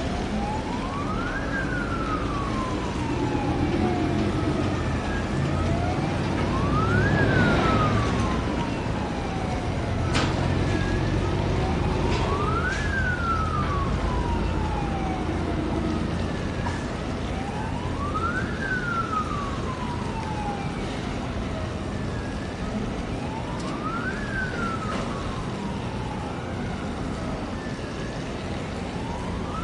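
A siren wailing slowly, each cycle rising quickly and then falling away over about four seconds, repeating about every five to six seconds over a steady low rumble.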